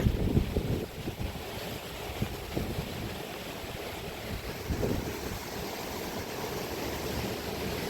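Strong wind buffeting the microphone, a low rumble that gusts and eases, over a steady rushing hiss.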